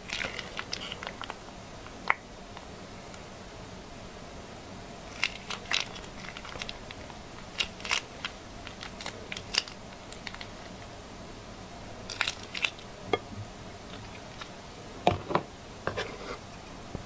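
Soft plastic pouch crinkling in scattered crackles as it is squeezed to pipe out thick milk paste.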